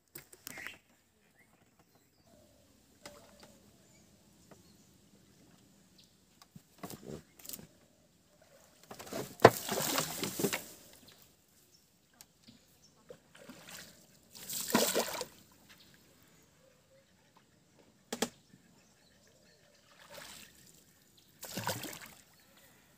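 Water sloshing and splashing in several bursts a few seconds apart as a bamboo pole is pushed into the canal to punt a small wooden boat along.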